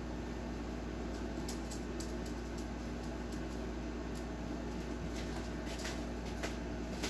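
A small dog's claws clicking lightly and irregularly on a hardwood floor as it walks, over a steady low household hum.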